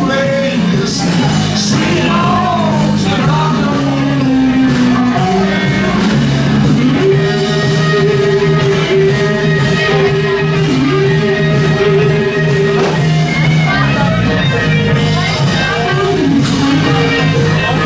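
Live rock band playing: a man singing over electric guitar and bass, with a steady beat and one long held note through the middle.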